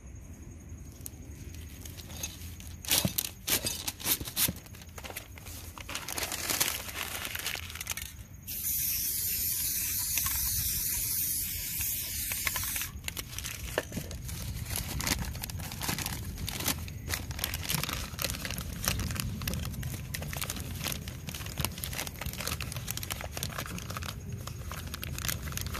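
An aerosol spray paint can hissing steadily for about four seconds, a third of the way in. Around it, sharp clicks and the crinkling of newspaper being handled and pressed onto the wet paint.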